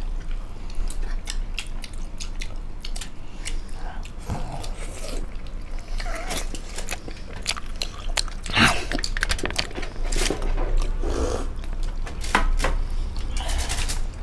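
People chewing steamed chicken momos (dumplings) at close range: a run of small wet mouth clicks and lip smacks, with a few louder smacks in the second half.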